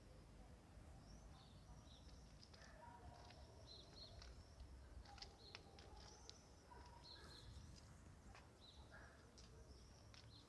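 Faint, scattered bird chirps, short and repeated, over a low steady background rumble.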